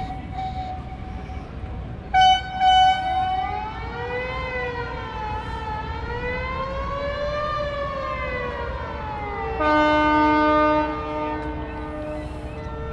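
Boat horns and whistles sounding a salute. Two short loud blasts come about two seconds in, then a long wailing tone that rises and falls in pitch like a siren, then a loud, long, steady horn blast about ten seconds in. Other horns overlap with it near the end.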